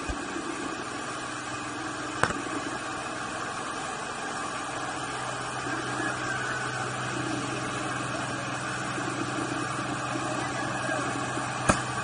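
Steady mechanical hum with a sharp click about two seconds in and another near the end.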